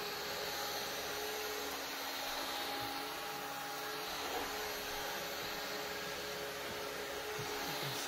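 Shark Cordless Pet Plus stick vacuum running steadily on its bare-floor setting: an even motor whine over a rushing hiss of airflow.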